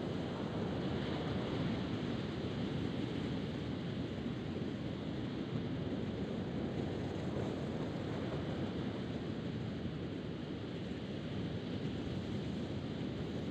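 Steady rush of ocean surf mixed with wind blowing across the microphone.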